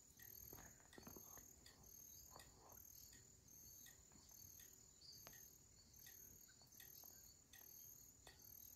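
Faint insect chirping: a short, high chirp repeating evenly about twice a second, with a few soft clicks.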